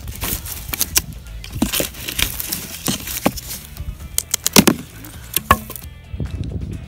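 Dry sticks and twigs snapping in a series of sharp, irregular cracks as kindling is broken by hand for a small campfire. The loudest cracks come a little over four and a half seconds in, and the sound turns quieter and duller at about six seconds.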